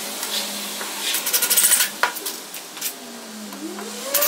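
Screws clinking and rattling as they are picked out of a small plastic box, with a sharp click about two seconds in. Near the end a cordless drill-driver's motor starts to whir up, rising in pitch.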